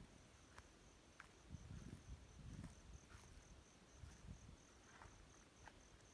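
Faint cricket chirping in an even, high-pitched pulse of about four chirps a second, with a few soft low thumps between about one and a half and three seconds in.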